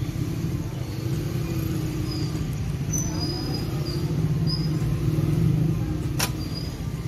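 Steady low rumble of street background noise with faint voices in it, and one sharp click about six seconds in.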